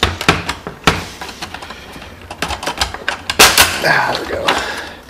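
Hard plastic casing of a Cisco 7960/7940 IP phone clicking, creaking and scraping as the top housing is wiggled and slid off its base: irregular sharp clicks and rattles, loudest about three and a half seconds in.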